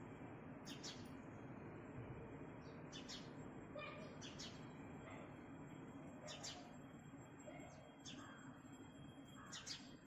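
House sparrow chirping: short, high single chirps every second or so, some in quick pairs, over a faint steady background noise.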